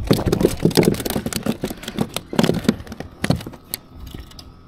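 A rapid, irregular run of clicks and knocks, thinning out and quieter after about three and a half seconds.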